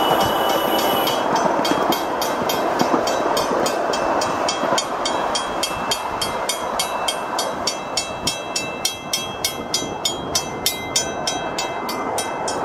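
Miniature train rolling along its 7.5-inch gauge track with a steady rumble of wheels on rail, while a grade-crossing signal bell rings at about four strokes a second, getting louder in the second half as the train passes.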